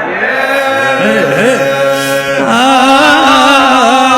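A man chanting an Arabic Husseini elegy (latmiya), drawing out a long melismatic note with wavering ornaments between sung lines.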